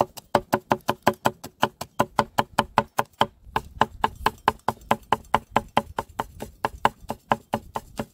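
Kitchen knife chopping fast on a wooden cutting board, an even rhythm of about five strokes a second with a short break about three seconds in.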